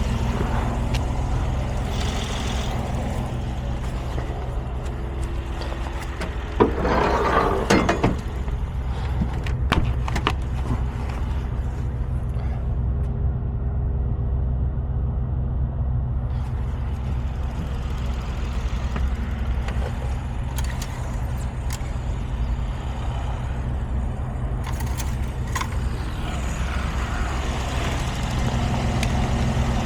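Mercedes Sprinter's 3.0 L V6 diesel engine (OM642) idling steadily. There is a clunk about seven seconds in and a couple of sharp clicks a few seconds later.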